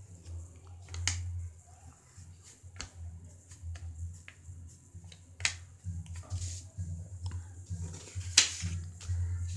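Black Sharpie marker stroking across paper: short, sharp scratchy squeaks spaced a few seconds apart, the loudest near the end, over a low uneven hum.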